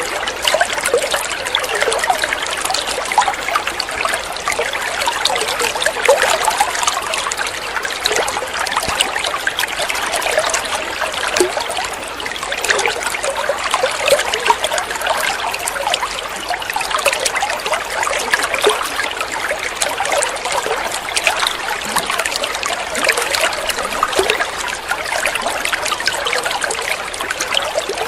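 Water running and trickling steadily, a continuous babbling flow without a break.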